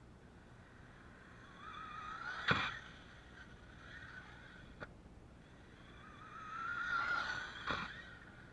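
Brushless motor of an Arrma Talion BLX 6S radio-controlled car whining up in pitch as it speeds at a wooden ramp, then a sharp knock as it hits the ramp and launches; this happens twice, with a smaller click between the two runs.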